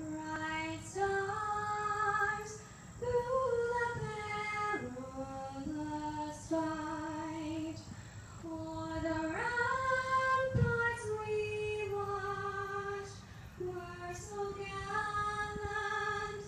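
A woman singing solo and unaccompanied into a handheld microphone, holding long notes with vibrato.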